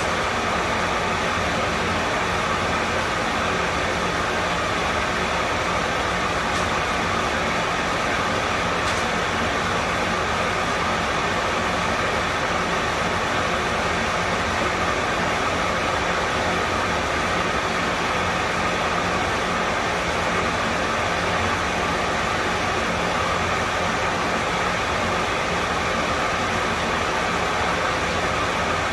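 A motor-driven machine running steadily and unchanging: a constant rushing noise with a few steady hum tones in it.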